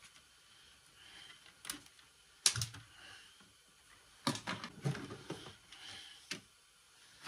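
Scattered sharp clicks and knocks of plastic and metal parts as a circuit board is worked loose from an old modem's chassis by hand. The loudest knock comes about two and a half seconds in, with a quick run of clicks a little past halfway.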